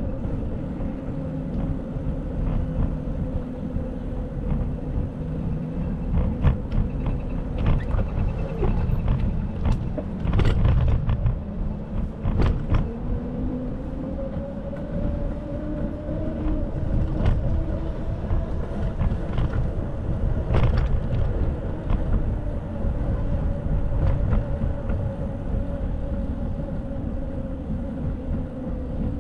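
Bicycle riding on city streets: a steady low road-and-wind rumble with a faint hum that drifts slowly up and down in pitch, and several sharp knocks.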